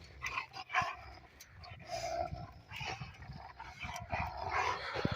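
Dogs making short, irregular low growls and grumbles, mixed with scuffling and a few sharp clicks.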